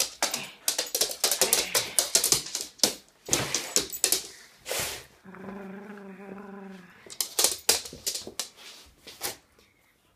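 Small dog playing with a plush toy on a wooden floor: runs of quick clicks and taps from its claws and teeth, with a low growl lasting under two seconds about midway.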